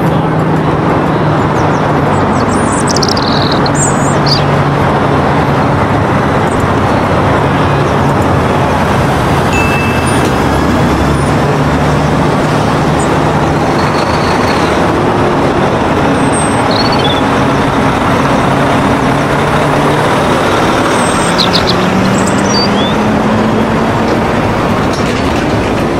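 A motor vehicle's engine running steadily under loud road noise, the engine note rising a few seconds before the end.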